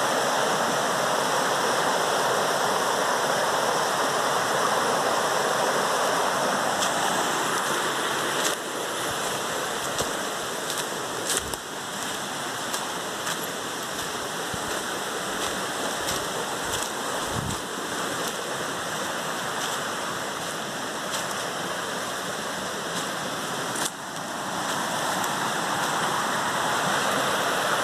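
Steady rushing noise, with a few faint clicks, that drops quieter about eight seconds in and comes back up near the end.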